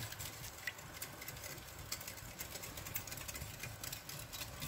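Wire whisk beating a runny mix of egg, milk and oil in a glass bowl: a fast, steady run of light clicks as the wires strike the glass, with the liquid swishing underneath.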